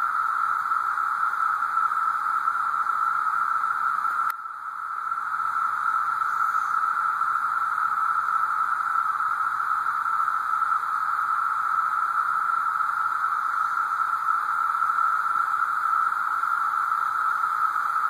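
Chorus of periodical cicadas (the 17-year Brood II) in the trees: a loud, continuous, steady whine at one pitch. A single click about four seconds in is followed by a brief dip in the chorus.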